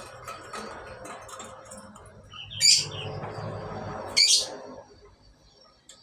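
Male black-capped lory giving two short, loud, shrill calls about a second and a half apart.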